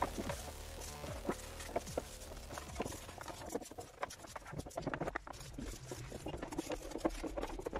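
A stiff hand brush scrubbing plastic brush cutter parts in soapy water: quick, irregular scratching strokes mixed with splashing and sloshing water.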